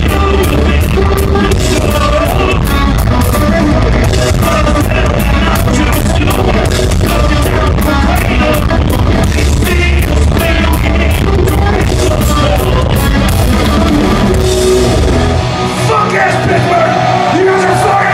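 Loud live heavy rock band, recorded from the audience: distorted electric guitars, bass and pounding drums with cymbal crashes, and singing. About fifteen seconds in, the band stops and the crowd yells and whoops.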